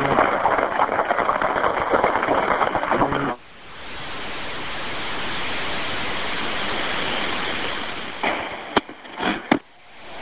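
Noise over an open emergency telephone line: dense crackling for about three seconds, then it cuts off sharply into a steady hiss that slowly grows, broken near the end by a few sharp clicks and a short dropout.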